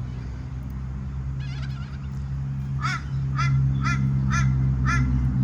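A bird gives a short warbling call, then five short, harsh honking calls about half a second apart, over a steady low hum.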